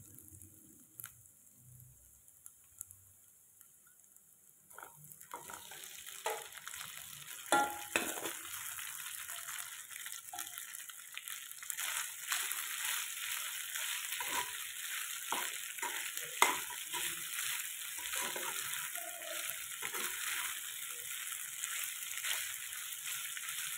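Stainless steel pan of butter, garlic and green chillies almost quiet at first. About five seconds in, fried chicken pieces go into the pan and it sizzles steadily, with a metal spatula scraping and clicking against the pan as it stirs.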